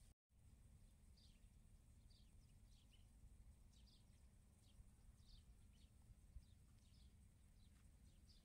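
Near silence with faint, high bird chirps, short falling notes often in pairs, about two a second, over a low outdoor rumble.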